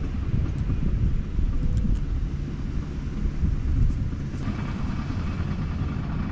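Steady low outdoor rumble, with a brighter hiss joining about four seconds in.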